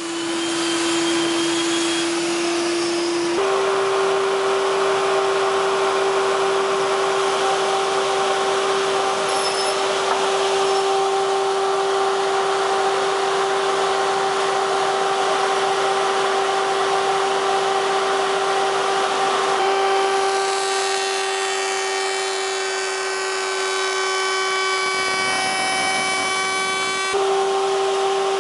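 Soukup Crafter woodworking machining centre running with a steady high-pitched whine that steps up in pitch a few seconds in. From about twenty to twenty-seven seconds in, a denser set of higher tones joins the whine.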